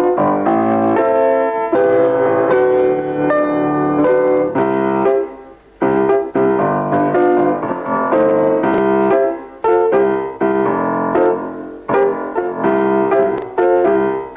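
Piano played in short melodic phrases, with brief pauses between them.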